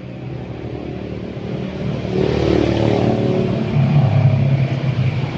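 A motor vehicle's engine running, a steady hum growing louder from about two seconds in.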